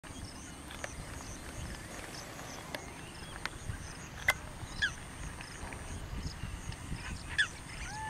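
Outdoor ambience: a steady low rumble and a thin high steady tone, with a few short downward-sliding bird calls, about halfway through and again near the end. A few sharp clicks are scattered through it.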